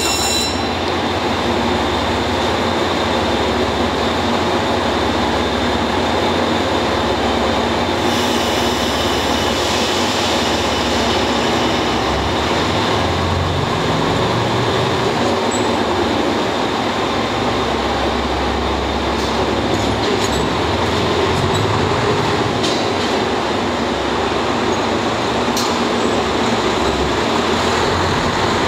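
KiHa 185 series diesel railcar engines running steadily as the two-car train stands at the platform and begins to pull away near the end.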